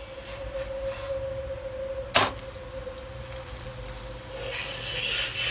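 A paratha is flipped on a nonstick tawa: a single sharp clack of the plastic slotted spatula against the pan about two seconds in. Then the ghee-coated side sizzles on the hot pan, getting louder near the end.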